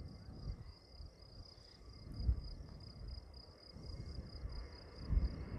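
Insects trilling steadily in the grass, a continuous high pulsing chirr, over an uneven low rumble that swells a couple of times.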